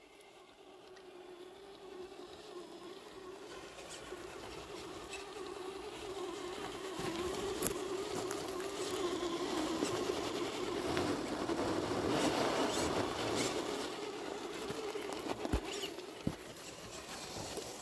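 Electric motor and gears of a Traxxas TRX-4 RC crawler whining at crawling speed, the pitch wavering with the throttle; it grows louder toward the middle and fades near the end. Light crackling and a few sharp clicks from the tyres and chassis working over dirt and sticks.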